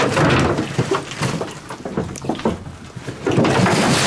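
Scraping and rustling of dirt, straw and loose boards on a barn floor, with scattered knocks, as debris is shifted and dogs nose through it; the sound is loudest in the first second and again near the end.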